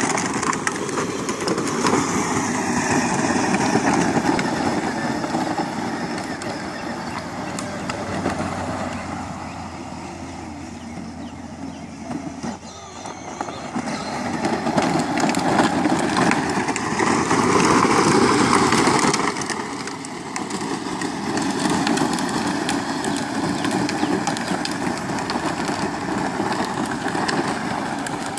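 Battery-powered ride-on toy Jeep driving on asphalt: its hard plastic wheels rumble on the rough surface along with its electric drive motors, the noise swelling and easing as it goes.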